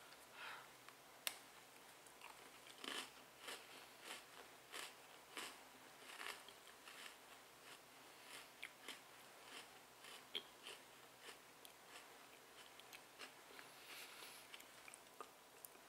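Faint crunching and chewing of a Sour Patch Kids Oreo sandwich cookie: short irregular crunches about twice a second, with one sharper bite click just over a second in.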